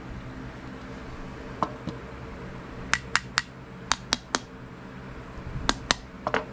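Short, sharp metal clicks and clinks, about a dozen in three loose groups, as a removed lawn-tractor carburetor and small parts or hand tools are handled, over a steady low hum.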